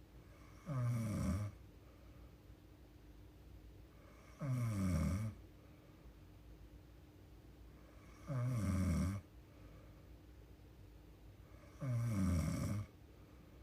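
A young woman snoring in her sleep: four even snores, each just under a second long, coming about every three and a half to four seconds.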